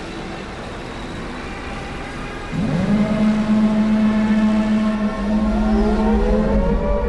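Air-raid siren winding up: a low tone swoops up and holds about two and a half seconds in, then a second, higher tone rises slowly and joins it from about five seconds in, over a low rumble.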